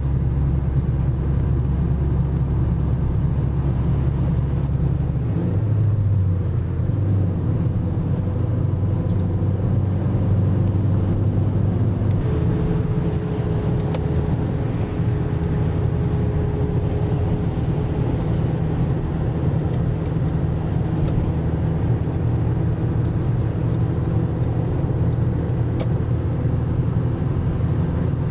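Steady road and engine noise heard from inside a moving car at motorway speed: a low rumble that shifts in tone about five seconds in and again about twelve seconds in.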